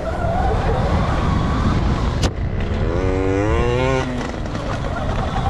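Dirt bike engine running under a heavy low rumble, with a wavering rev rising and falling for about a second, about three seconds in, and a sharp click just before it.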